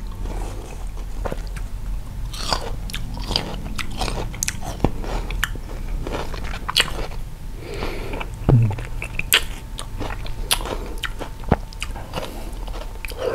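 Close-miked biting and crunchy chewing of crisp raw sour fruit, in many short cracking crunches, with a brief hummed 'mm' about eight and a half seconds in.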